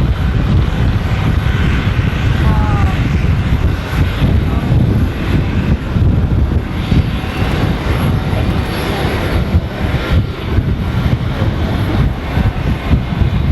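Aircraft engines running on the apron: a loud, steady rumble with a noisy hiss above it.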